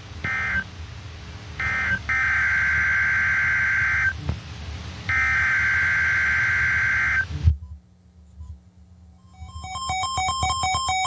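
Emergency Alert System SAME data bursts, the warbling two-tone digital squawk of a weather radio alert: two short end-of-message bursts about a second apart, then two longer header bursts of about two seconds each, cutting off suddenly. A few seconds later, electronic music with a stepping synthesized melody begins.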